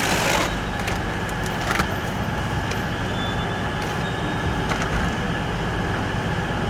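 Steady low machine hum with a background rush of ambient noise at the escalator, with a brief rushing burst at the very start and a faint click about two seconds in.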